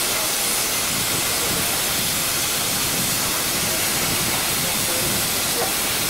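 Steam hissing steadily from a steam locomotive, an even, unbroken hiss.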